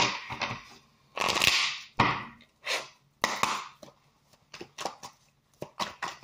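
A deck of tarot cards being shuffled by hand: short swishing rushes of cards sliding over one another, with sharp snaps and taps, quickening into a run of small clicks near the end.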